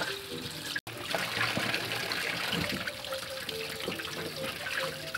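Water splashing and trickling as vegetables are rubbed clean by hand in a basin of water. The sound drops out for an instant just under a second in.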